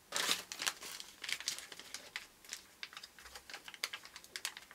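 Packaging being handled and unwrapped: crinkling and rustling with irregular small crackles and clicks, densest in the first second and thinning out after.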